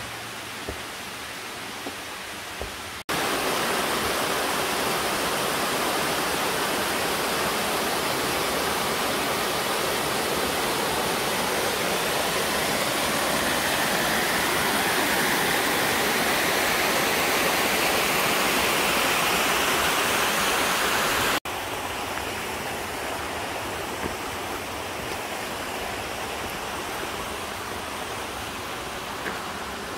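Mountain stream cascading over rock ledges: a steady rush of water, loud and close from about three seconds in until about twenty-one seconds, cutting in and out suddenly, with a softer rush of the stream before and after.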